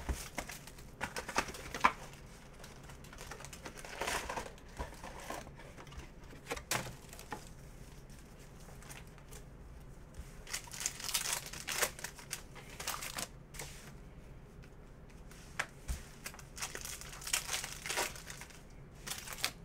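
Foil wrappers of Panini Prizm basketball retail card packs crinkling and tearing as they are handled and ripped open by hand, in irregular bursts.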